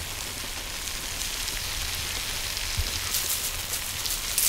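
Tandoori chicken sizzling steadily over a charcoal fire, with a few small crackles and pops near the end.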